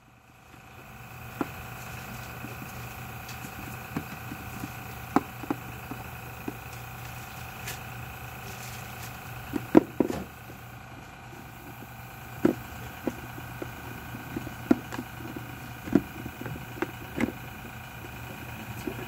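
Scattered sharp plastic clicks and taps from a small articulated plastic model figure as its limbs and head are bent and it is set down on a cardboard box, a cluster of the loudest about halfway through. A steady background hum runs underneath.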